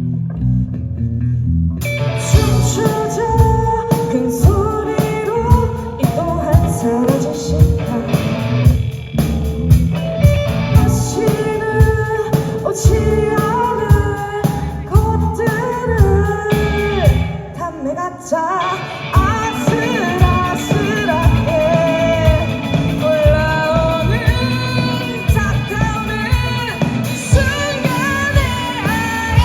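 Live rock band playing: a singer carrying the melody over electric guitar, bass and a driving drum beat. The first couple of seconds have only the low end before the full band comes in, and the band thins out briefly around two-thirds of the way through.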